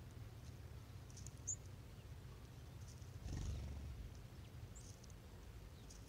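A few short, high chips from small songbirds at a ground feeding spot, one bright chip about one and a half seconds in and a short falling call near the end, over a faint low steady rumble. A brief louder rush a little past halfway.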